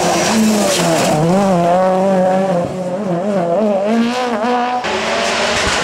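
Ford Fiesta rally car taking a tight right-hand junction, its engine note rising and falling rapidly as the throttle is worked through the corner. The engine sound changes abruptly near the end.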